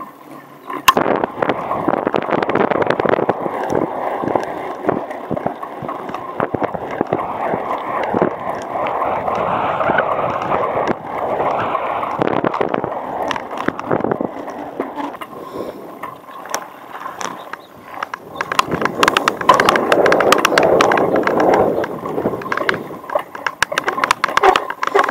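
Bicycle ride heard through an action camera's built-in microphone: a steady rush of tyre and wind noise, peppered with small rattles and knocks. It eases for a few seconds past the middle and then picks up again.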